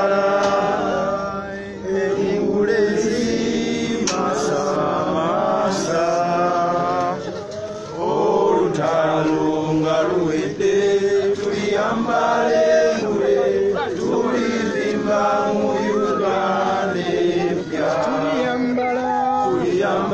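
A crowd singing a chant together in phrases of a few seconds, with short breaks between them.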